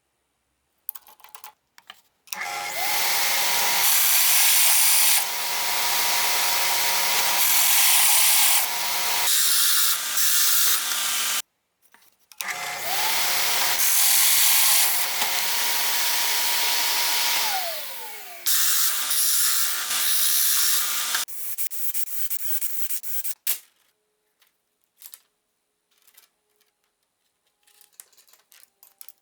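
A power tool's electric motor runs twice for about nine seconds each time. Its whine rises as it spins up and falls away as it stops, over a loud rushing noise of cutting or air. Afterwards come a few light clicks and handling knocks.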